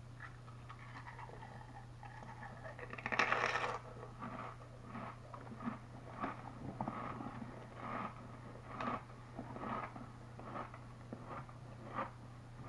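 Biting and chewing a Lay's Stax potato crisp: one louder crunch about three seconds in, then a run of short chewing crunches, roughly one or two a second, over a low steady hum.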